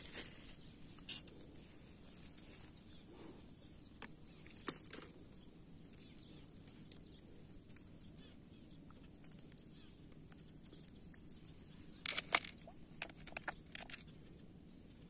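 Faint, scattered clicks and taps of fishing tackle being handled while a lure is swapped, with a cluster of sharper clicks near the end, over a quiet outdoor background.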